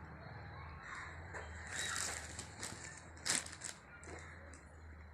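Packaging rustling and crinkling in short handled bursts as a parcel is opened, the loudest about two and three seconds in, over a low steady hum.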